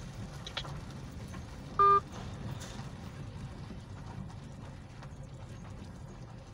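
Steady low hum of a car cabin with the engine running, broken about two seconds in by one short, loud electronic beep, with faint clicks scattered through.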